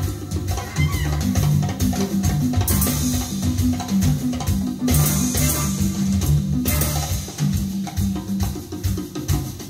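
Jazz band with drum kit, congas and steady low bass notes, with cymbals ringing through, played back through a pair of late-1970s Nubert Typ 471 BS loudspeakers and heard in the room.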